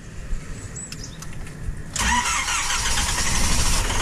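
Small car's petrol engine turned over by the starter about two seconds in, catching and running. It is hard starting at high altitude in the cold morning, and soon afterwards it fires and dies again.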